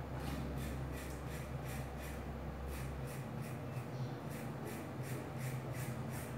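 Plastic Gillette razor scraping stubble off the neck through shaving cream in quick short strokes, about three to four a second, with a brief pause midway. A steady low hum runs underneath.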